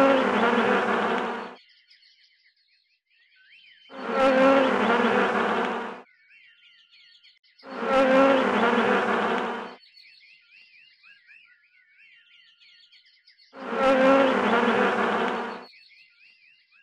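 A flying insect buzzing in four bursts of about two seconds each, evenly spaced, with faint high bird-like chirps in the gaps between them.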